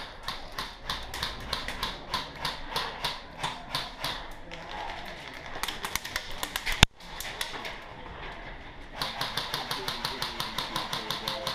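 Airsoft guns firing indoors, shot after shot in irregular clicks, with one much louder crack about seven seconds in. After a short lull a fast, even run of shots starts near the end.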